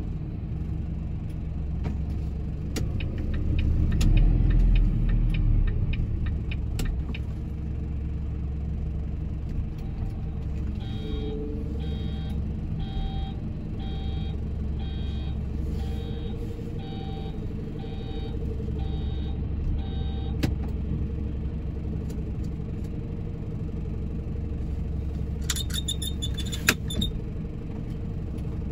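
Truck engine idling, heard from inside the cab as a steady low hum, with a louder rumble swelling briefly a few seconds in. In the middle come about ten evenly spaced beeps, roughly one a second, and near the end a brief cluster of high clicks or rattles.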